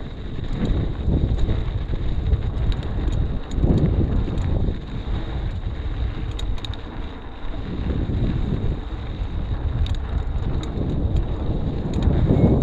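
Wind buffeting the microphone: a rough, uneven rumble that swells and fades every second or two, with scattered sharp clicks and rattles.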